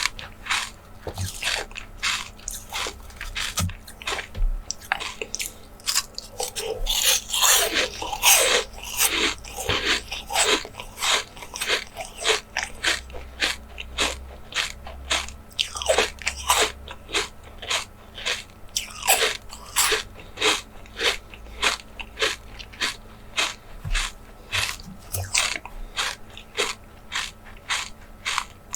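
Close-miked ASMR eating: crisp crunching bites and chewing repeating about twice a second, thickest around a third of the way in.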